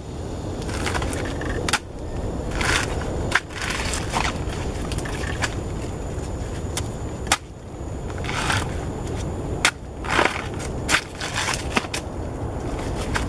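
Machete blade chopping into a banana trunk and its fibrous, watery sheaths being torn and peeled away: a handful of sharp chops spread out, with crunching and tearing between them.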